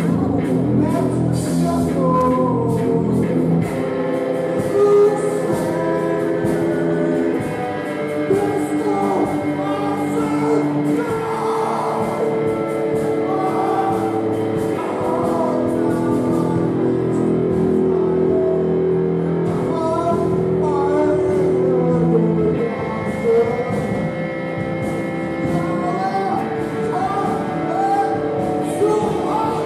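Live music: a man singing into a microphone over long held instrumental tones, probably the electric guitar he plays.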